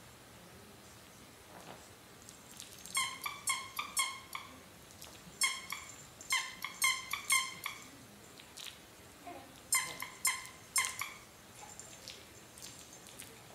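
Squeaker in a soft plush baby toy squeezed over and over, in three runs of short high squeaks, several a second, with pauses between the runs.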